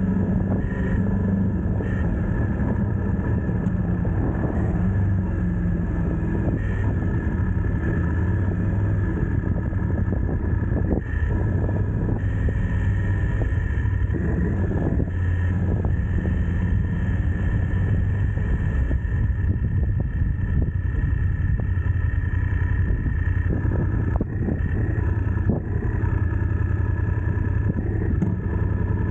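Vehicle engine running steadily at low speed, then idling once stopped.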